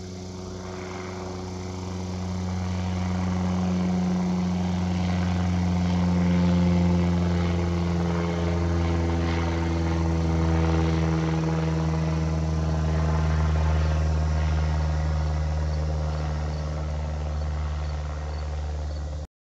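Cessna 172M Skyhawk's four-cylinder piston engine and propeller droning as the plane flies over. The drone swells to its loudest about six seconds in, then slowly fades, with a slight drop in pitch as it passes.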